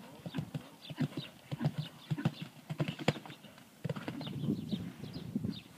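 A rapid, uneven series of clopping knocks.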